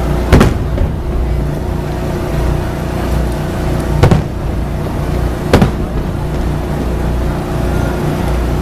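Aerial firework shells bursting three times, sharp bangs about half a second, four seconds and five and a half seconds in, over a steady low rumble.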